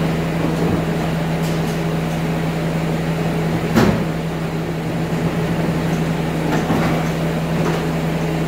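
A Bobcat compact track loader's diesel engine runs steadily while it lifts a pickup bed on chains. About four seconds in, a single loud metal clunk sounds as the bed takes the load, followed by a couple of lighter knocks.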